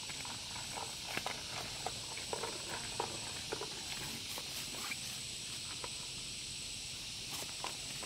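Steady high hiss of a forest insect chorus with a thin high whistle-like tone, overlaid by scattered light clicks and rustles, busiest in the first half.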